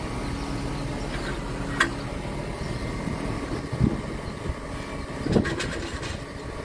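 Tractor engine idling steadily, with a sharp metallic click and a couple of knocks as the loader wagon's knives are handled in the knife bank.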